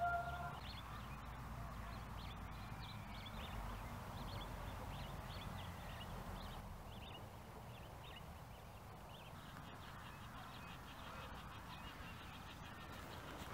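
A held musical tone cuts off about half a second in, leaving faint outdoor ambience: many short bird chirps and calls over a low, steady rumble.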